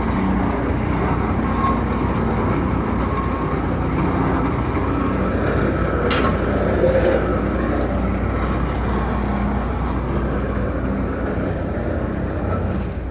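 Engine of a boatyard crane running steadily as it moves a lifted boat, with a single sharp click about six seconds in.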